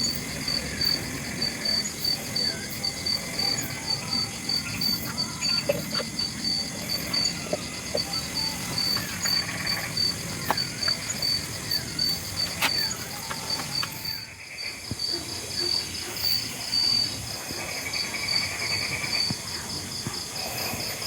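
Insect chirping: a steady high pulsing trill, several pulses a second, with scattered clicks and short faint chirps.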